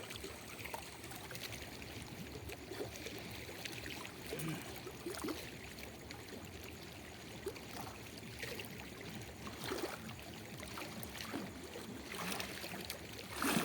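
River water running and trickling, with scattered small knocks and splashes and a louder knock near the end.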